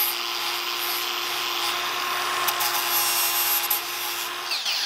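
Milwaukee M18 Fuel cordless angle grinder running against the face of a hardened 4140 steel anvil, a steady motor whine over the hiss of grinding, polishing the face to bright metal so the tempering colours can be seen. Near the end the grinder is switched off and its whine falls away quickly.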